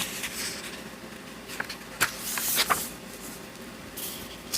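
Paper pages of a coloring book being turned: a few soft taps and short papery swishes, the longest about two and a half seconds in.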